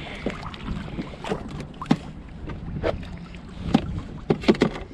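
Wind buffeting the microphone over a plastic sit-on-top kayak, with about eight short, irregular knocks on the hull and deck, three of them close together near the end.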